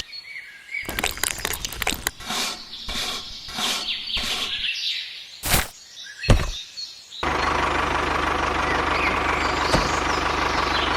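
Birds chirping among scattered clicks and knocks, then about seven seconds in a small motor starts and runs steadily with an even hum.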